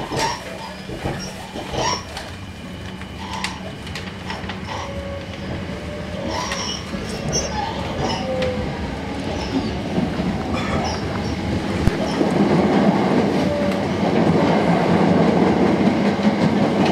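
Sanyo Electric Railway 5000 series electric train pulling away from a station, heard from inside a passenger car. The running rumble and wheel noise grow steadily louder as it picks up speed, with a few sharp clacks.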